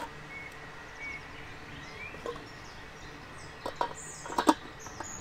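A few sharp metal clinks about four seconds in, the loudest near the end, as the lid of an Omnia stovetop oven is set down onto its pan. Birds chirp in the background.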